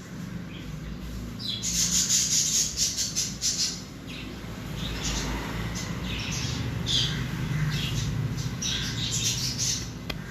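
Baby parrot calling in quick series of high chirps and squawks, a dense run about two seconds in and scattered groups of calls after it.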